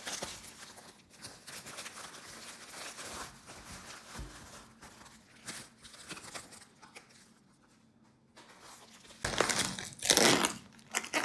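A padded plastic mailer and bubble wrap being torn and crinkled by hand. The crinkling is soft and scattered, pauses briefly a little past the middle, then comes louder in bursts near the end.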